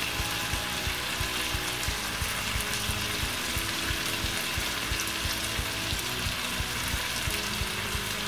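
Teriyaki sauce sizzling in a frying pan around fried chicken pieces as it reduces: a steady hiss with many small crackles.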